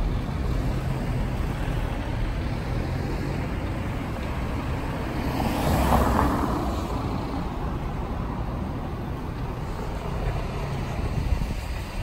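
City street traffic: a steady wash of cars going by. One vehicle passes close about halfway through, rising and then falling away.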